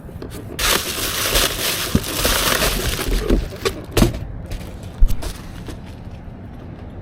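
Packaging being torn open by hand, a crackling, ripping noise lasting about three seconds, then two sharp knocks.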